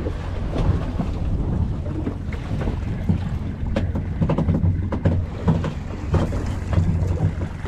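Wind buffeting the microphone over a steady low rumble of a fishing boat at sea, with water washing around the hull.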